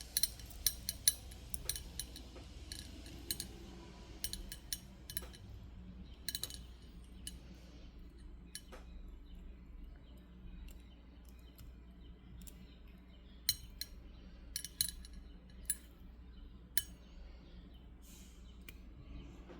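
Small sharp clicks and clinks of black tourmaline and clear quartz beads, wire and small jewellery tools being handled as a bracelet is restrung, with a flurry of clicks in the first few seconds and another around two-thirds through, scattered ones between.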